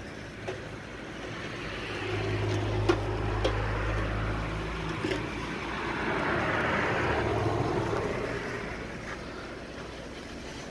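Road traffic: a vehicle passes, swelling and fading, then a second one passes a few seconds later, with a few light clicks in between.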